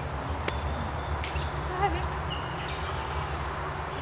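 Short bird calls, a few high chirps and one wavering call about two seconds in, over a low steady rumble.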